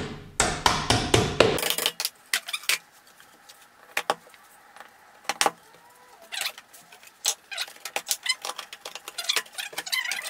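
A hammer tapping plastic dowels into the particleboard side of a flat-pack drawer, a quick run of knocks that stops about a second and a half in. Then scattered light clicks and clatter of small parts being handled.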